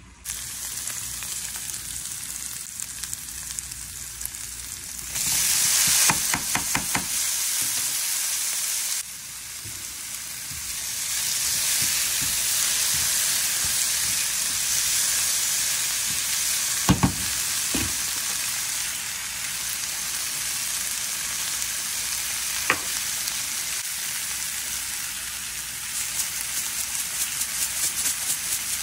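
Diced tomatoes, green peppers, onion and sausage sizzling in a nonstick frying pan as they are stirred with a spatula, with a few sharp knocks of the utensil on the pan along the way. Near the end, a quick rapid rattle as seasoning is shaken in.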